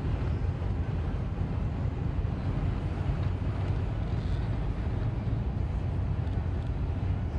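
Steady low rumble of a car driving on the interstate, heard from inside the cabin: engine and tyre noise, with the wind outside.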